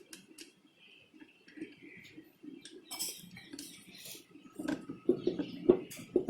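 Scattered light clicks, clinks and small knocks of a screw and small metal parts being handled and fitted into a plastic air filter box. The knocks come more often and louder in the last few seconds.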